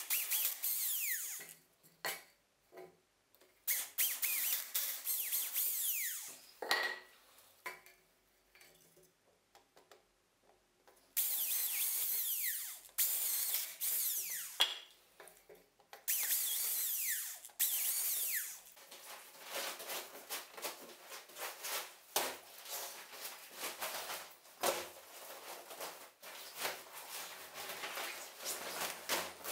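Cordless drill boring holes through a wooden board: four runs of about two seconds each, with pauses between. From about two-thirds of the way in, the plastic of an inflatable pool crinkles and rustles as it is unfolded.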